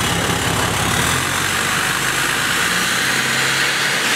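Straight-piped 6.7 Cummins inline-six turbodiesel running steadily at idle while its exhaust blows into a balloon fitted over the tailpipe tip, inflating it.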